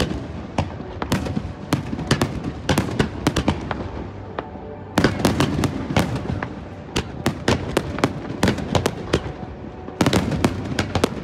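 Fireworks display: aerial shells and rising shells going off in rapid succession, a steady run of sharp bangs and crackles, with thicker, louder volleys about five seconds in and again near the end.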